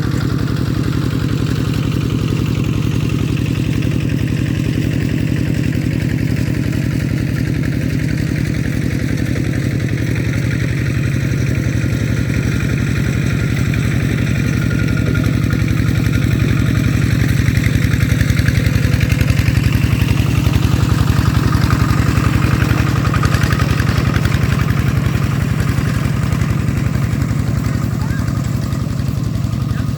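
Small farm engine running steadily, getting a little louder about halfway through and then easing back.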